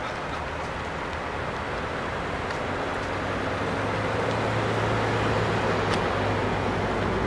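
An engine running steadily under a broad rushing noise, its low hum getting louder from about halfway through.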